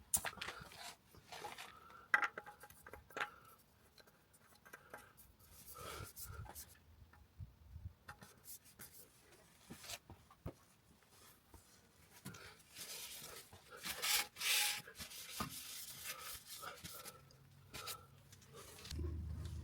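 Irregular clicks, small knocks and rubbing of tools and parts being handled during oil-change work, with no steady rhythm. A low steady hum sets in at the very end.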